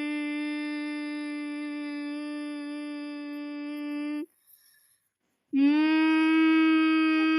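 A person humming a long, steady, droning note, stopping for about a second and a half a little past halfway, then starting the same note again with a slight upward slide.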